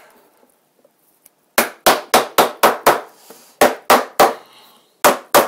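Hammer knocking the warped tongue-and-groove boards of a glued Langstroth beehive bottom board into their grooves: about eleven sharp knocks on wood, a quick run of six, then three, then two near the end.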